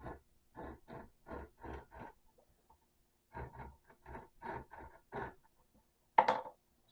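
Double-sided carpet tape being cut down the middle in a run of short scraping strokes, about three a second, with a pause midway and a sharper stroke near the end.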